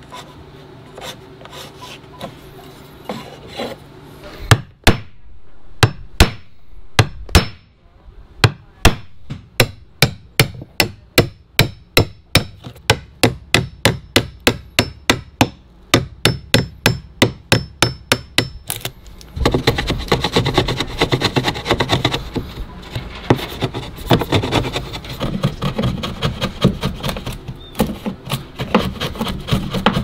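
Hammer striking a wood chisel to cut a hinge mortise in a wooden door jamb: light scratching at first, then a steady run of sharp taps, about two a second, from around five seconds in. Just before twenty seconds in, the taps give way to denser rough scraping and chipping as the chisel pares out the wood.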